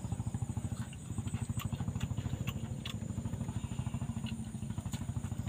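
A small engine running steadily, with a fast, even low throb; a thin, steady high tone sits above it.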